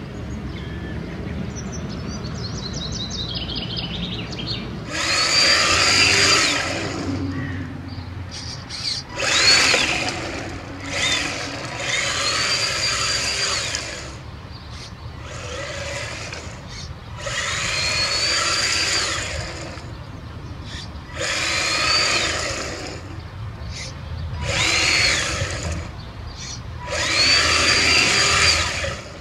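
RC car with a Mustang touring-car body making repeated runs: its electric motor whines up in pitch and holds at top speed for a second or two, about eight times, with the tyres hissing and crunching over loose gravel during each run.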